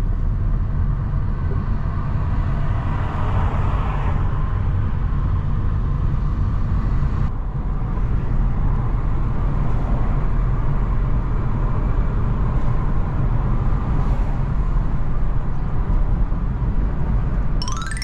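Road traffic: a steady, loud rumble of vehicle engines and tyres, with a short rising tone right at the end.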